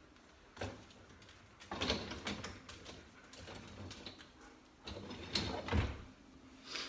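Clunks and rattles of a door and a sliding mechanism being worked, in four separate bursts, the loudest about two seconds in and near the end.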